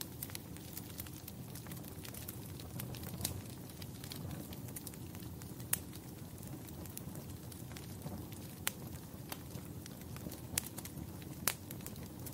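Wood fire crackling over a steady low rumble. Sharp pops and snaps come at irregular moments, a few of them louder than the rest.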